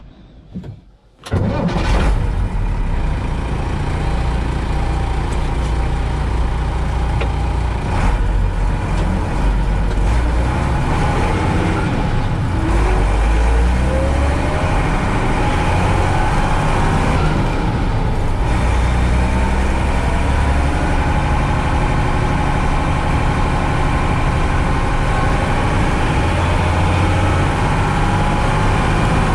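Unimog U 406's six-cylinder diesel engine starting suddenly about a second in, then running steadily as the truck drives along a gravel track.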